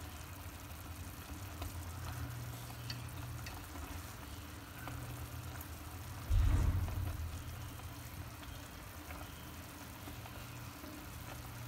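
A pot of soup simmering with a faint bubbling and a steady low hum. About six seconds in there is a single sudden low thump, the loudest sound, as chopsticks stir the greens in the stainless steel pot.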